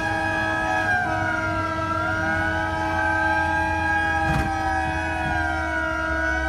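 Several emergency-vehicle sirens sound together. One wails slowly down and back up over steadier siren tones. A single sharp click comes about four seconds in.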